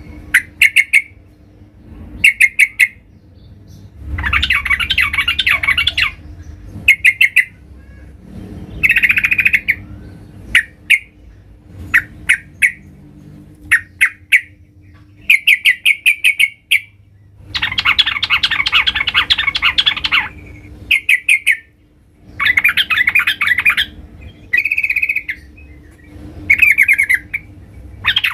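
Yellow-vented bulbul (trucukan) singing loudly and persistently. Short bursts of quick, bubbly notes come every second or two, broken by longer chattering phrases about two seconds long. This is the full challenge song ('gacor') of a bird calling for a rival.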